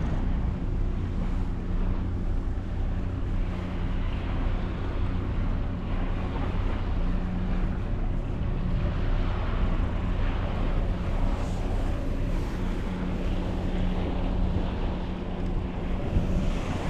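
Wind buffeting the microphone over the wash of the sea, with a faint low hum that comes and goes.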